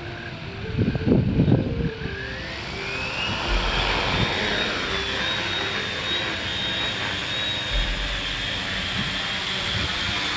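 Electric quadcopter's motors and propellers spinning up for takeoff: a whine that rises in pitch about two seconds in, then holds steady as the drone lifts off and climbs. A loud low rumble comes about a second in as it throttles up.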